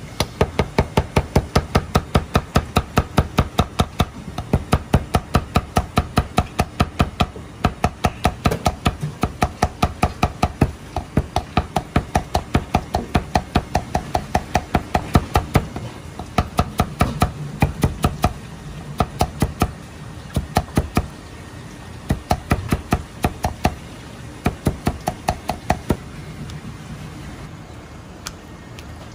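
Chinese cleaver rapidly chopping sliced ginger into fine julienne on a plastic cutting board: quick, even knocks of the blade on the board, about five a second, in runs broken by short pauses, stopping a few seconds before the end.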